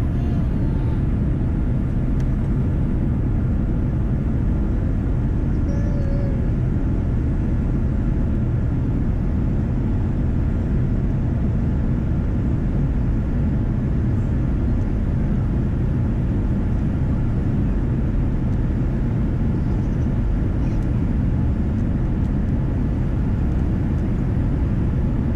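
Steady, loud rumble of a Boeing 787 Dreamliner airliner, the even low drone of the engines and airflow as heard aboard.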